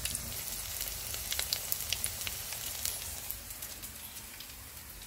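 Hot oil sizzling and crackling with many small pops around a potato, ham and egg fritter frying in a pan, fading a little toward the end.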